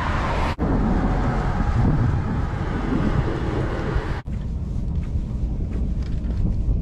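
Steady road and wind noise of a moving vehicle, with wind buffeting the microphone. It breaks off abruptly for an instant twice.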